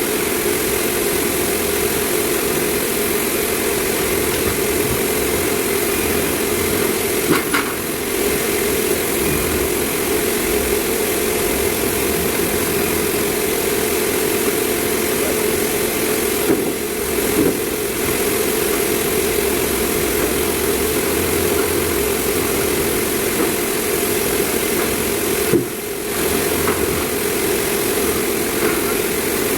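Sawmill machinery running steadily with a continuous engine-like drone, briefly dipping three times.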